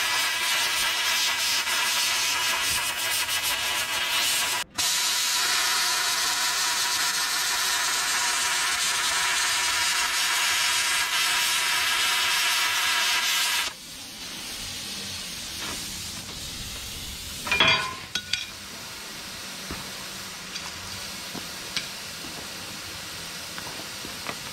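Handheld plasma cutter cutting a notch in steel angle: a steady loud hiss with a whine in it. It cuts out for a moment just under five seconds in, resumes, and stops about fourteen seconds in. A short loud clatter follows a few seconds later.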